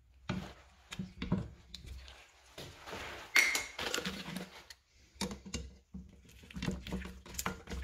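Small metal clinks, taps and rustling of a Torx bit and Wabco air suspension compressor parts being handled during disassembly, with a louder scrape about three and a half seconds in.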